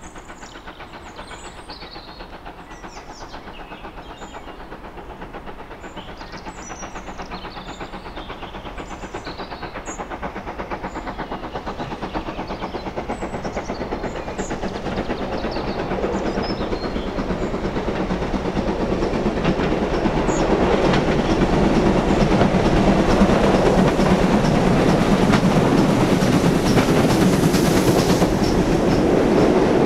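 Steam locomotive hauling a freight train, approaching and passing close by: its exhaust and the clatter of the wheels over the rails grow steadily louder, loudest in the last few seconds.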